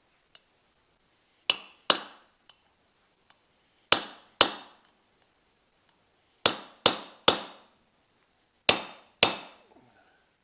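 Hammer blows on a metal part of a belt pulley attachment: nine sharp strikes in groups of two and three, each with a brief ringing, knocking a tight part to shift it.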